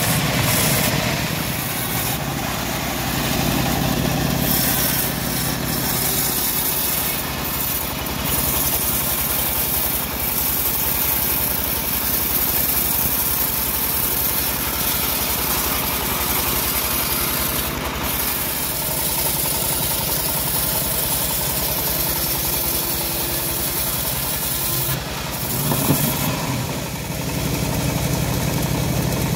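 Homemade band sawmill running steadily, its engine driving the band blade as it saws a teak log. A short, louder knock comes near the end.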